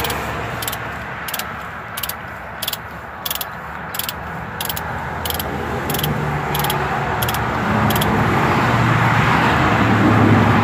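Ratchet with a 24 mm socket clicking in short, regular bursts, about two a second, as it runs the nut off a lower ball joint stud; the clicking stops about eight seconds in. A low traffic hum runs underneath and swells near the end.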